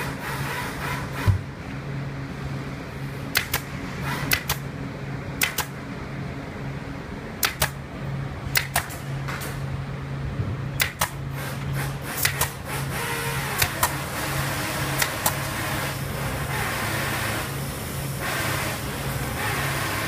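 Pneumatic upholstery staple gun firing staples through fabric into a sofa frame: sharp snaps, often in quick pairs, every second or two, over a steady low machinery hum.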